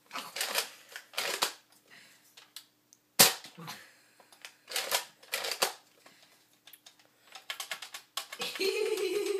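Sharp plastic snaps and clacks of a Nerf dart blaster being worked, the loudest about three seconds in, with a quick run of clicks near the end.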